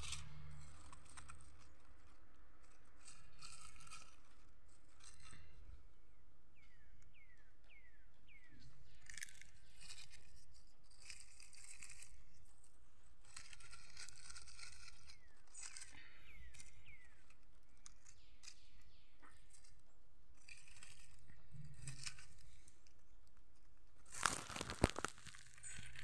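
Dry fallen chestnut leaves rustling and crackling as a hand rummages through the leaf litter picking up chestnuts, with short falling chirps now and then. About two seconds before the end comes a much louder, sharp crackling burst of handling.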